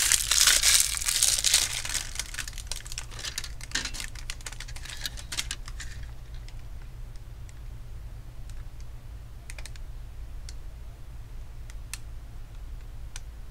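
Thin protective plastic film from a new laptop screen crinkling as it is peeled off and crumpled, loud for the first couple of seconds and dying away by about six seconds in. A few scattered light clicks follow.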